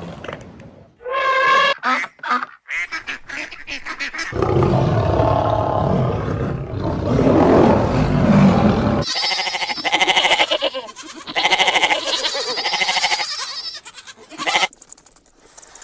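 A run of animal calls, one clip after another: a few short calls, a long low rough call in the middle, then repeated honking calls over the last several seconds.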